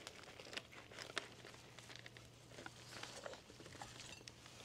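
Faint chewing of a bite of shakshuka focaccia, with light crinkling of its paper wrapper and a few soft crackles.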